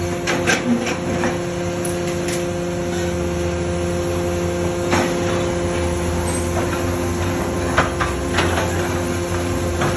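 Dalongkai Y81K-250 hydraulic scrap-metal baler running: a steady hum from its hydraulic power unit, with scattered sharp knocks, several in the first second, another about halfway and a couple near the end.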